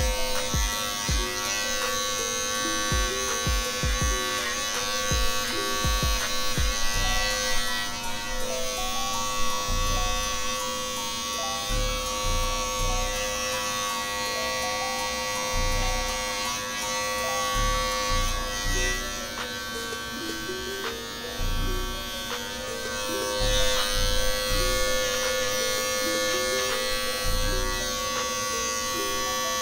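Corded Andis Master hair clippers running with a steady electric hum as they cut short hair, over background music with a melody and low beat.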